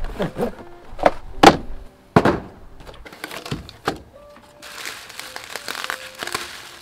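Cardboard box parts thunking and scraping as a packing insert and small boxes are pulled out and set down, with several sharp knocks in the first four seconds. About two-thirds of the way in, plastic bubble-wrap packaging starts to crinkle. Background music plays underneath.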